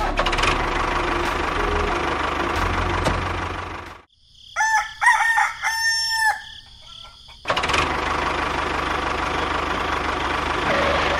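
A rooster crowing for about three seconds in the middle, between stretches of a steady whirring hum with a low drone, like a small motor running.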